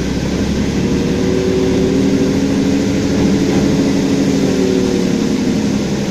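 Car engine running steadily at low revs, heard from inside the cabin, as the car drives slowly through floodwater. A constant hiss of water runs under the engine note.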